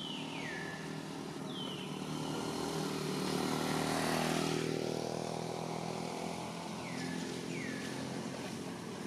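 A motor vehicle passing close by on the road, its engine and tyre noise building to a peak about four seconds in and then easing off. Short high chirps falling in pitch sound twice near the start and twice near the end.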